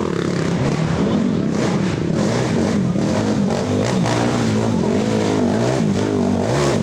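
Several racing ATV engines revving, their pitch rising and falling as the quads accelerate and shift, with a few engines overlapping.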